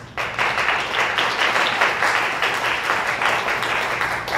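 Audience applauding: a burst of many people clapping that begins suddenly just after the start and holds steady.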